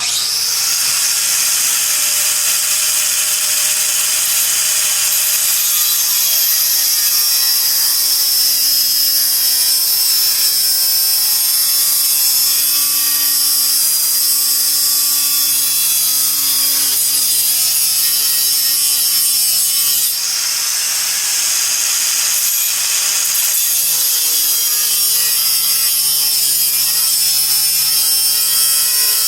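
Angle grinder with a Benchmark Abrasives cut-off wheel cutting through sheet steel: a continuous loud, hissing cutting noise over the motor's whine, which sags in pitch as the wheel loads and picks back up. It lets up briefly about twenty seconds in.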